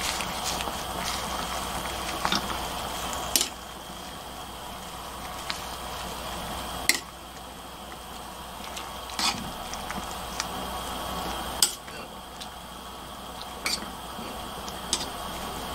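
Water bubbling in a stainless steel pot as perilla leaves are turned and pushed under with metal tongs, the tongs giving sharp clicks against the pot every couple of seconds.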